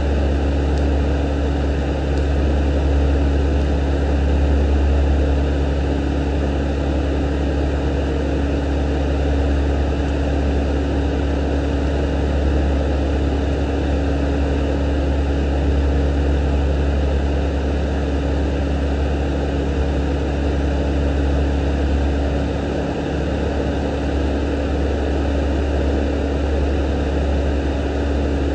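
A steady, loud low drone with a constant hum above it, unchanging throughout, like a motor or fan running.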